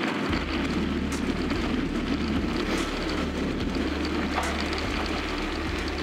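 Bicycle tyres rolling fast down a dirt track, with wind rushing over the handlebar-mounted microphone and a few sharp clicks from the bike over bumps.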